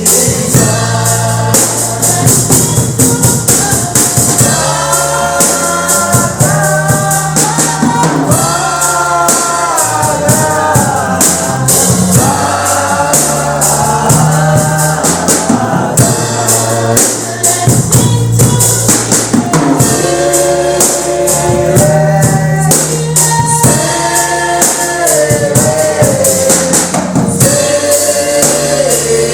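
Gospel music: a choir singing over a band with drums and tambourine.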